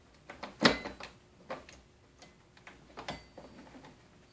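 Irregular clicks and light knocks from the chainsaw's bar, chain and side cover being handled and fitted, the loudest just under a second in and others at about one and a half and three seconds.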